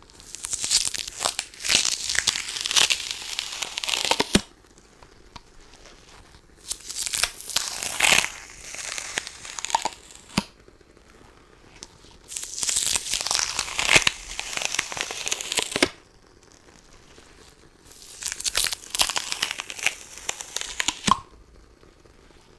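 Sticky lint roller rolled across a surface, its adhesive sheet crackling and tearing as it pulls away. It comes in four passes of a few seconds each, with short pauses between them.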